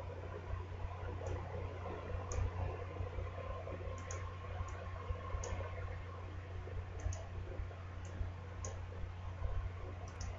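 Faint computer mouse button clicks, about a dozen scattered irregularly, some in quick pairs, over a steady low hum.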